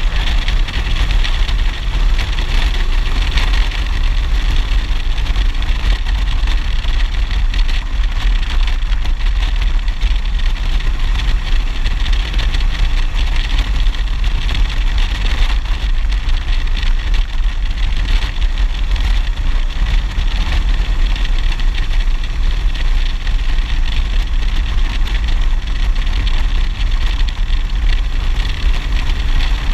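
Motorcycle at steady cruising speed: a constant engine drone mixed with wind rushing over a helmet-mounted microphone, with no change in speed.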